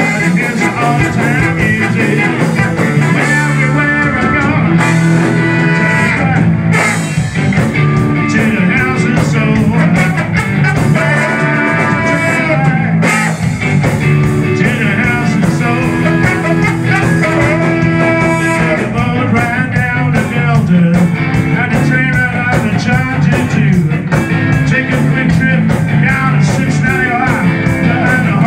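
Live ska band playing loudly, a horn section of trombone and saxophone carrying held notes and lines over the full band.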